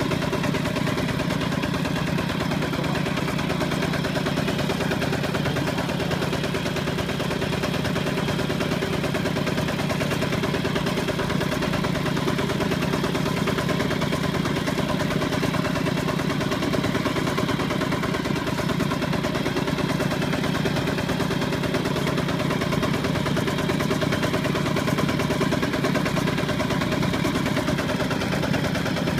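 Single-cylinder diesel engine of a Kubota two-wheel walking tractor running steadily at an even speed as the tractor drives through mud.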